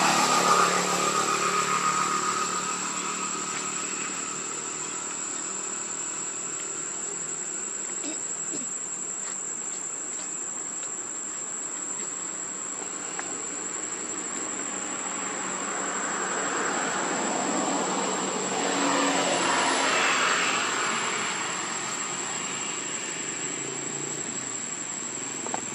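Steady high-pitched insect drone, with a broader hiss swelling up for a few seconds past the middle.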